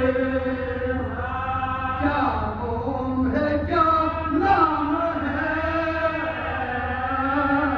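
Men's voices chanting a marsiya, the Urdu elegy for the martyrs of Karbala, in long held melodic notes that shift pitch every second or two.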